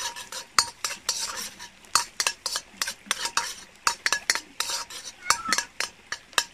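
A metal utensil stirring and scraping in a pot or pan, with quick, irregular clinks against the cookware. Some clinks leave a short metallic ring.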